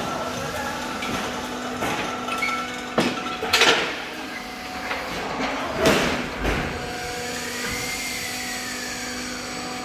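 Automatic fly ash brick plant machinery running with a steady hum, broken by sharp metallic clanks about three seconds in, again half a second later and near six seconds, as pallets of fresh blocks are handled by the pallet stacker. A whine rises and falls in pitch near the end.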